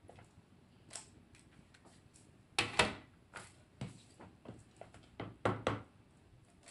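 Light clicks, taps and clinks of small metal llanera molds and utensils being handled on a kitchen counter, with a few sharper knocks about midway and again near the end.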